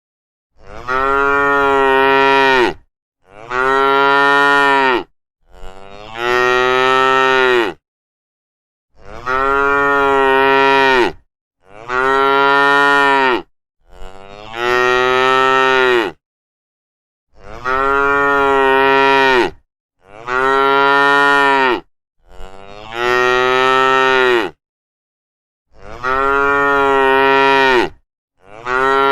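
Cattle mooing: about a dozen long, loud moos of about two seconds each, one after another, with dead silence between them.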